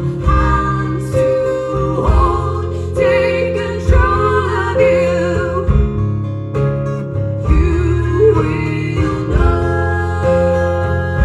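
Live band music: acoustic guitars strummed in a steady rhythm under a wavering sung melody.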